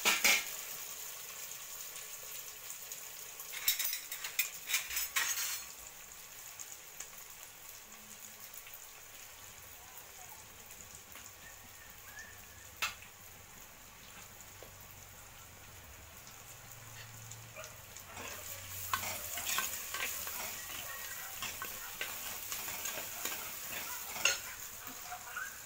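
Chopped onions and green chillies sizzling in hot oil in a clay pot, with a steady hiss, while a steel ladle stirs and scrapes against the pot in several short spells. The onions are being sautéed until golden.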